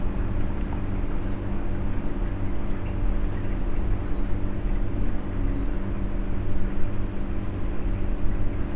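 A steady low mechanical hum, with a few faint high chirps now and then.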